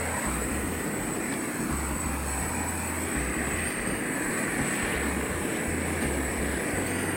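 Propane weed-burner torch running, a steady rushing hiss of the open flame as it is played over pine boards to char the surface.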